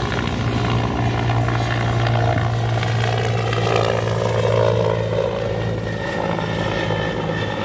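Bell 412 twin-engine helicopter in flight just after takeoff, its four-bladed main rotor and turbines running steadily.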